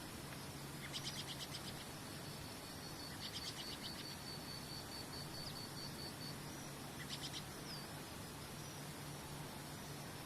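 Insects, cricket-like, calling: three short bursts of rapid high trilling with a thin, evenly pulsing high note between them, over a steady hiss of background noise.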